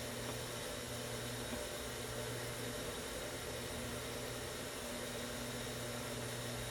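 Steady low electrical or mechanical hum over an even hiss, unchanging throughout, with no distinct handling sounds.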